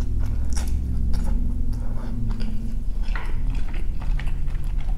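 Close-miked chewing of a mouthful of chicken pad thai rice noodles: many small wet clicks of the mouth and jaw.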